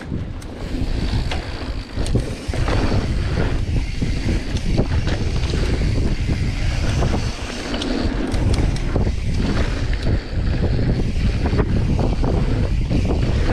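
Wind buffeting a GoPro microphone on a mountain bike riding fast down a dirt jump trail, with knobby tyres rolling over packed dirt and the bike rattling in frequent small knocks. It gets louder about two and a half seconds in as the bike picks up speed.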